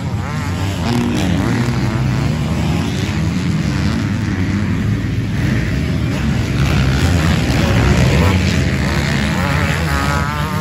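Several motocross bikes racing on a dirt track, their engines revving up and down as riders accelerate out of the turns and over the jumps. It gets loudest about two-thirds of the way in.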